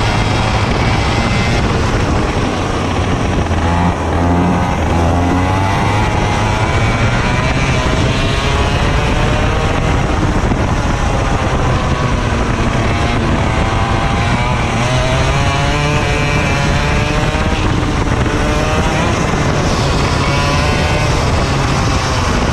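Racing kart engine heard up close from the driver's seat, running hard, its pitch rising and falling again and again as the kart accelerates out of corners and eases off into them.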